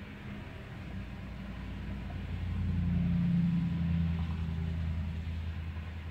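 Cars passing on a wet street, heard through window glass: a low engine and tyre rumble that swells to a peak a few seconds in, then eases off as the next car comes by.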